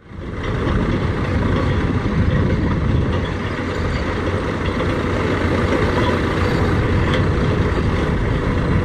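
Caterpillar D4 crawler dozer's diesel engine running steadily under load while towing a pulling sled.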